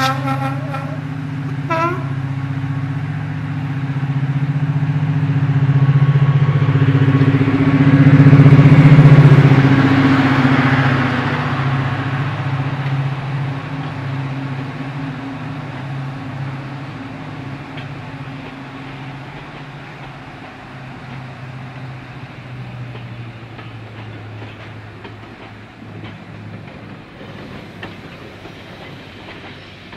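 Class 55 Deltic diesel locomotive's twin Napier Deltic two-stroke engines running under power as it passes close by and pulls away, loudest about nine seconds in, then fading steadily. Two brief toots sound in the first two seconds.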